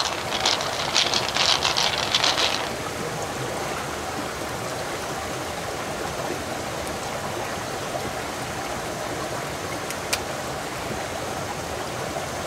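Rapid clicking and rattling for about the first two and a half seconds as the pearl-filled mussel shell is handled, then the steady rush of a small stream running over rocks. One sharp click about ten seconds in.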